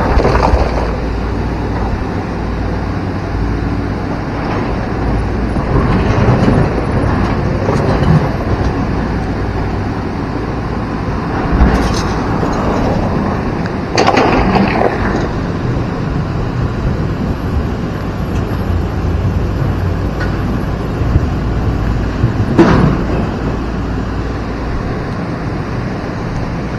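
Sumitomo tracked excavator's diesel engine running over the steady rush of a flooded river, with a few sharp knocks of rock and bucket striking stone.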